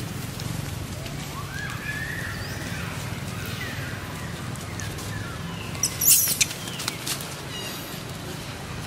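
Young long-tailed macaques squealing as they play-fight. A faint rising-and-falling call starts about a second in, and a short shrill scream comes about six seconds in, with a few smaller sharp cries after it, over a steady low hum.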